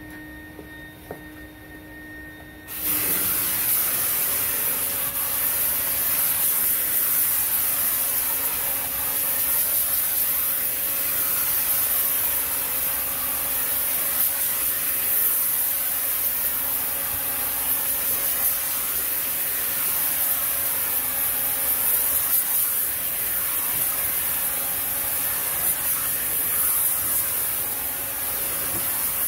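Paint spray gun hissing steadily as it atomizes paint onto a door, starting about three seconds in, with a steady low hum underneath.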